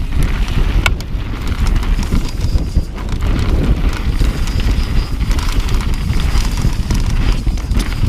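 Wind buffeting the action camera's microphone on a fast mountain-bike descent over dirt singletrack, with the bike and tyres rattling and knocking over the rough, loose trail and a few sharp clacks.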